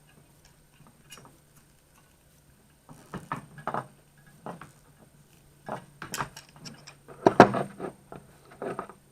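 Irregular metal clicks, taps and knocks of pliers working at the fuel pump and its bracket, in two clusters, the loudest a little past the middle.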